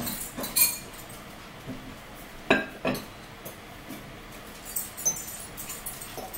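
A metal spoon clinking against a bowl several times as someone eats from it; the sharpest clinks come around two and a half and three seconds in.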